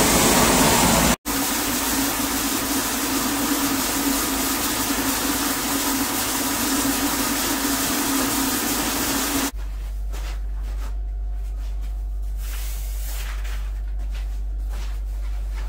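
Floor-screed pumping machinery running steadily with a loud hiss, broken by a brief dropout about a second in. About nine and a half seconds in, the sound cuts off abruptly to a much quieter steady low hum.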